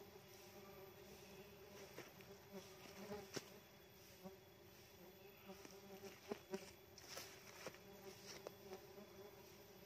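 Faint steady buzzing of Tetragonula laeviceps stingless bees flying about their opened nest, with a few scattered light clicks and taps.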